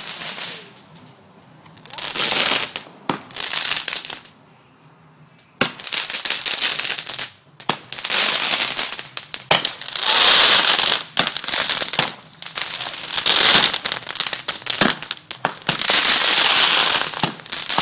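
Fireworks spraying sparks, hissing and crackling in bursts of a second or two with sharp pops between them. The bursts come with two lulls in the first six seconds and run almost without a break after that.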